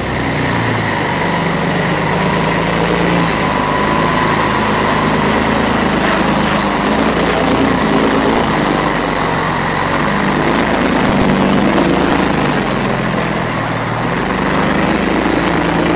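Scania T113 360 truck's 11-litre straight-six turbo diesel running steadily as it pulls a locomotive on a low-bed trailer slowly past, with a steady high whine over the low engine drone.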